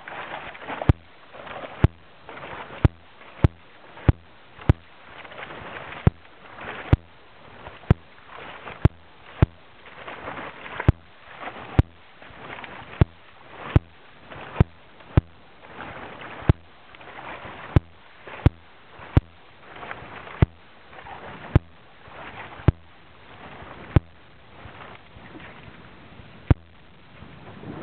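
A dog paddling through thin ice, with splashing and the crackle of ice breaking as it swims. Sharp clicks about once a second cut through it and are the loudest sound.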